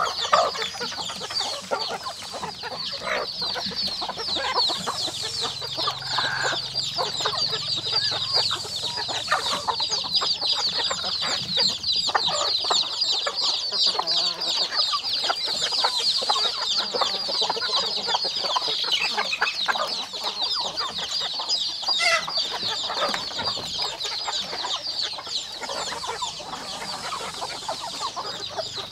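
A flock of chickens clucking as they feed, over a continuous high-pitched chorus of rapid chirping, with many short ticks and taps scattered throughout.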